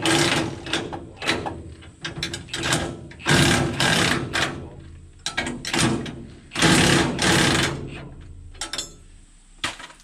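A power wrench runs in a series of short rattling bursts, with two longer ones of about a second, as bolts on a combine header plate are loosened.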